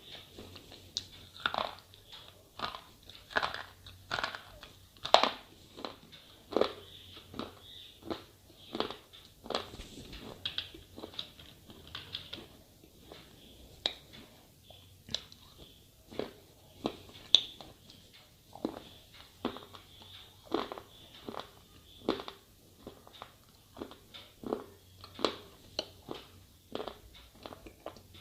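A person biting and chewing slate pencils: a steady run of sharp, brittle crunches, roughly two a second and uneven in loudness.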